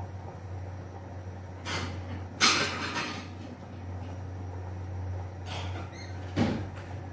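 A few sharp knocks and bangs over a steady low hum. The loudest comes about two and a half seconds in, with a lower, duller knock near the end.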